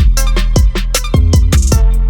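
Background music with a steady beat: drums and a heavy bass line.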